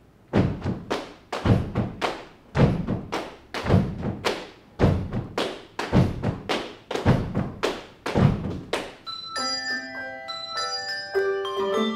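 Handbell ensemble opening a piece with a rhythmic pattern of unpitched knocks and thuds, in groups of quick strokes. About nine seconds in, the handbells start ringing a melody in clear, sustained bell tones.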